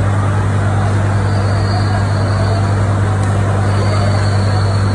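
Fire trucks' engines running steadily: a deep, continuous drone over a constant noisy background.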